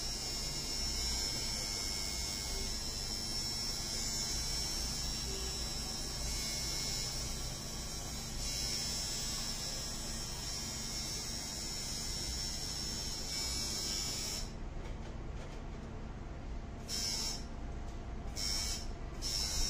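Steady electric buzzing hum of a small motor, with a constant high whine over a low hum. In the last few seconds the high whine cuts out and comes back several times.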